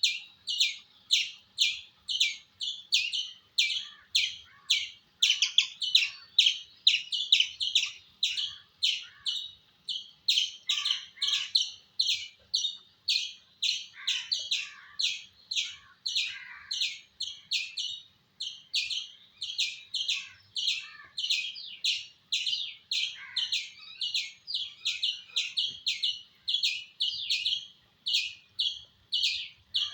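Indian squirrel calling, a rapid unbroken run of sharp, high chirps at about two a second.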